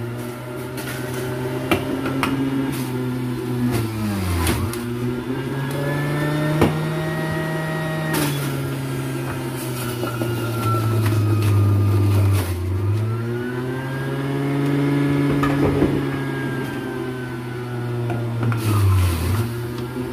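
Electric juicer motor running while pineapple and other produce are fed in and ground. Its hum rises and falls in pitch as the motor slows under each load and speeds up again, with sharp dips about four seconds in and near the end.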